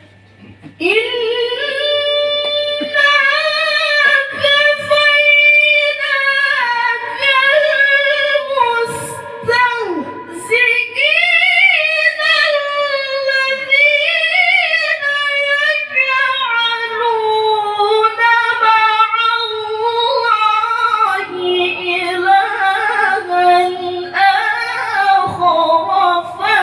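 Solo voice reciting the Quran in the melodic murattal/tilawah style, drawing out long, ornamented held phrases that start about a second in, broken by short breaths.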